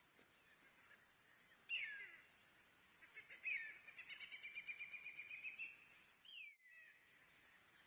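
Bird calls: a falling whistle, then another falling note leading into a rapid run of about five notes a second lasting some two seconds, then a final falling whistle. A faint steady high tone runs underneath.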